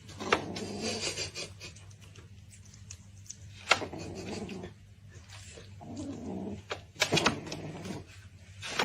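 Noises from a pet animal in several short stretches, with sharp clicks about four and seven seconds in.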